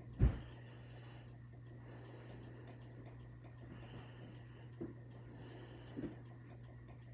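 A person's slow, steady breathing close to the phone's microphone, soft hissy breaths every second or two over a steady low hum. A sharp bump just after the start and a couple of small ticks come from handling the phone or brush.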